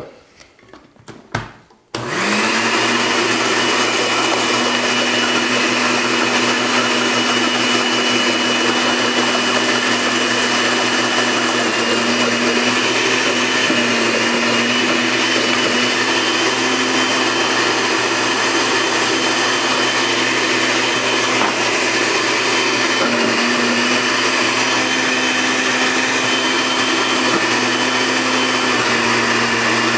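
Countertop blender switched on about two seconds in, after a few brief knocks, then running steadily on a thick paste of red curry paste, miso, ginger, garlic and lime juice. Its motor pitch dips slightly now and then while almond butter and oil are added through the lid as it runs.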